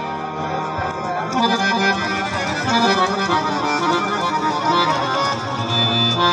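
Harmonium playing a qawwali melody in sustained reedy tones. A low held note drops out just under a second in and comes back near the end.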